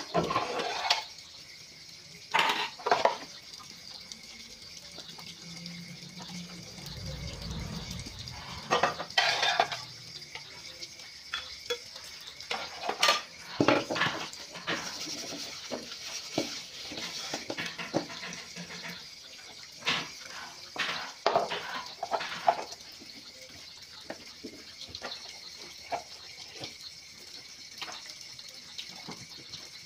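Hand dishwashing: irregular clatter and knocks of metal pots, a metal wok and plastic containers being handled and scrubbed with a soapy sponge at a sink.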